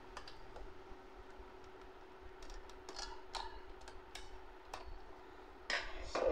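Light clicks and taps of plastic and metal parts as hands work a nut loose inside an Epson L3115 ink-tank printer, scattered through the middle with a louder clatter near the end.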